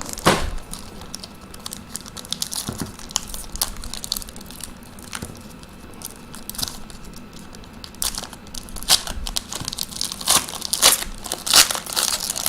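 Packaging of a trading-card pack crinkling and tearing as it is opened, with irregular crackles and rustles that get denser and louder in the second half.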